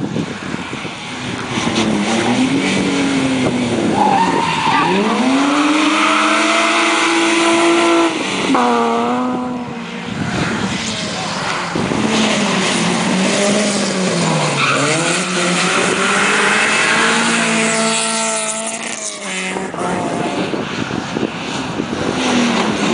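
Several rally cars passing in turn at full throttle, among them a Mercedes 190 and a BMW 3 Series. Each engine revs up through the gears, then drops back for the next change, so the pitch keeps rising and falling.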